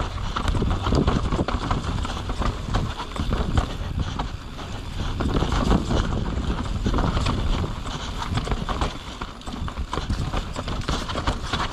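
Mountain bike ridden fast down a rough trail: tyres and frame rattle and knock over rocks and roots without a break, over a steady low rumble.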